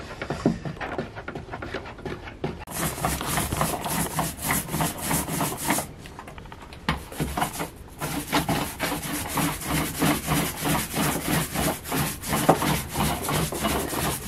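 Paintbrush strokes rubbing paint onto a wooden galley frame: a quick run of scratchy strokes that starts a few seconds in and breaks off briefly around the middle.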